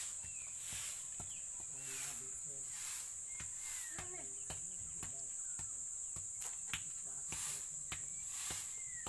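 Insects droning steadily in one continuous high-pitched tone, with short chirps heard now and then over it.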